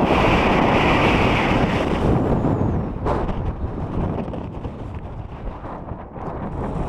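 Strong wind buffeting the microphone in gusts, heaviest in the first couple of seconds and dying down briefly near the end.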